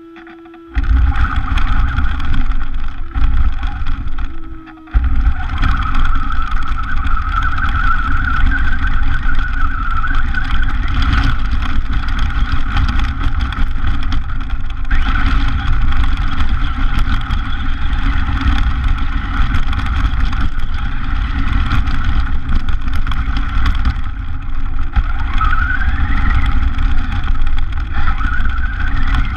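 RC car driving, heard from its onboard camera: the motor and drivetrain run with tyre noise over gravel and then pavement. It starts abruptly about a second in, drops briefly around four to five seconds, then runs steadily, with a couple of rising whines near the end as it speeds up.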